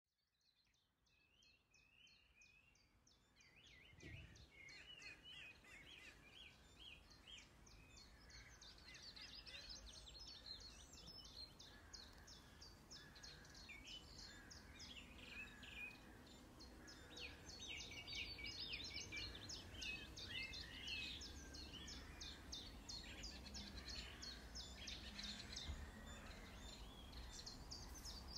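Several small songbirds singing and chirping in quick repeated high notes, fading in from silence over the first few seconds and growing louder, over a quiet low background rumble.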